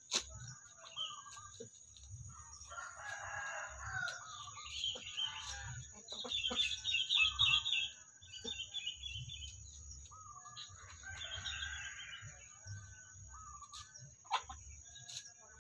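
Chickens calling: clucks and a rooster's crow, in several rough calls with the loudest in the middle and another later on.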